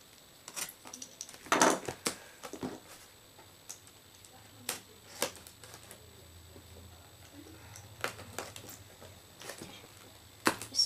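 Cardboard box and plastic packaging being handled and tipped out: scattered clicks, taps and short rustles, with a louder scrape-and-knock about a second and a half in and again at the very end.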